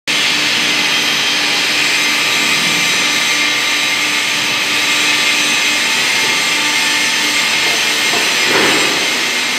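Industrial machinery running steadily: a loud, even hiss with a faint hum under it that drops away near the end, and a short louder rush about eight and a half seconds in.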